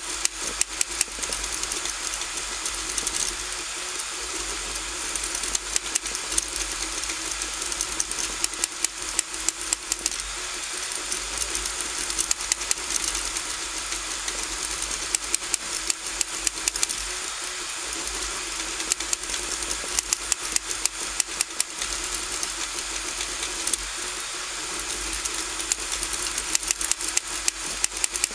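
RigidBot 3D printer printing: its stepper motors whirr steadily under a faint fan hiss, broken every few seconds by clusters of rapid sharp clicks.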